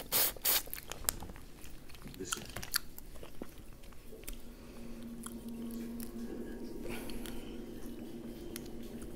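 Close-up mouth sounds of a crawfish being sucked, loudest in the first second, then the crackle and snap of crawfish shells peeled by hand. From about four seconds in, a low steady hum sits underneath.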